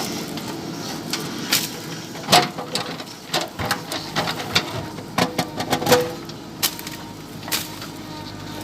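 JCB 3DX backhoe loader's diesel engine running steadily, with a run of irregular sharp cracks and snaps as the machine breaks through a tree's branches.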